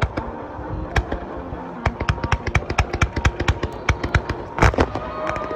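Fireworks going off: scattered sharp bangs, then a rapid crackling string of reports from about two seconds in, with the loudest bang near the end.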